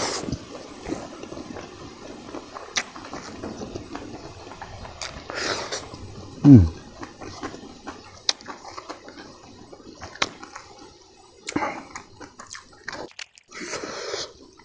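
A person eating rice and curry by hand: wet clicks and smacks from chewing and from fingers working the moist rice on a banana leaf. A brief low falling sound about six and a half seconds in is the loudest moment.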